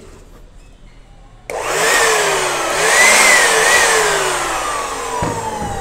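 Electric machine's motor, running off the newly wired board, starts suddenly about a second and a half in and runs with a loud whirr. Its pitch rises and wavers, then slowly sinks.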